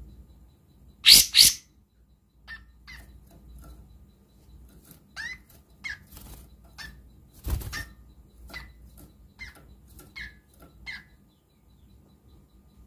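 A caged kapas tembak songbird calling in short, sharp chip notes, a dozen or so spread over several seconds. Two loud, harsh bursts come about a second in, and a dull thump comes about halfway as the bird flutters in the cage.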